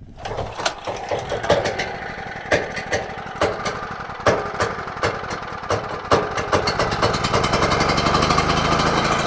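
Champion portable generator's gasoline engine catching from a cold start on choke and running rough, firing unevenly with irregular loud knocks before it settles into a faster, steadier run near the end. The owner suspects water or sediment in the fuel bowl behind the rough running.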